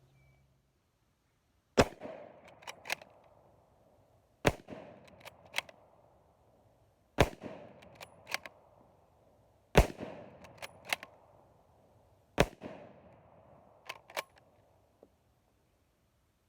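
Remington M1903 bolt-action rifle fired five times, about two and a half seconds apart. Each shot has an echo that dies away and is followed by two sharp clicks as the bolt is worked to chamber the next round.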